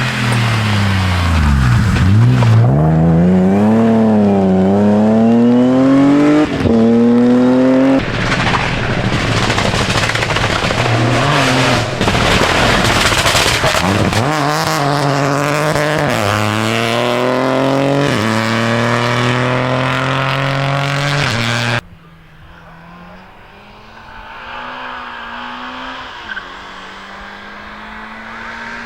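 Rally cars driven flat out, their engines revving up and falling back again and again through gear changes as they pass, in a few abrupt cuts from one car to the next. For the last several seconds it is much quieter, with a more distant car's engine slowly climbing in pitch.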